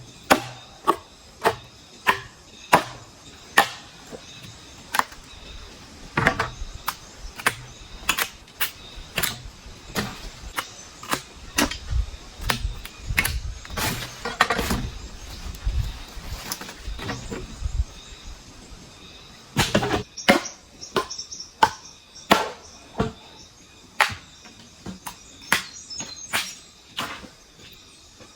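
Bamboo being chopped with a blade: a long run of sharp strokes, one or two a second, coming less evenly and with lower thuds through the middle.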